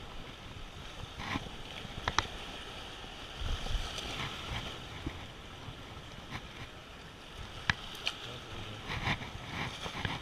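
Choppy surf washing against granite jetty rocks, with wind, broken by a few sharp clicks and taps.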